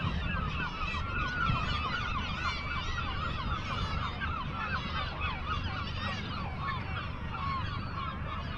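A seabird colony calling: many short, overlapping bird calls from the cliffs, with a low rumble underneath.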